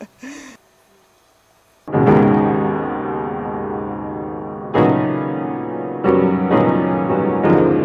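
Grand piano: after a short pause, loud chords are struck about two seconds in and then every second or so, each left to ring into the next.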